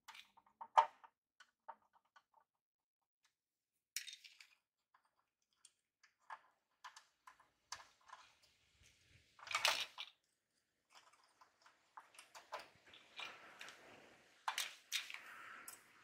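Light clicks, taps and scrapes of hands handling a dismantled garage door opener's plastic control-board housing and metal base plate, with one louder scrape a little past halfway. A faint hiss comes in near the end.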